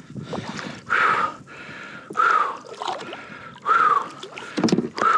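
Water splashing and sloshing against the kayak as a hooked redfish thrashes at the side while a hand reaches in to grab it, in about four separate bursts roughly a second and a half apart.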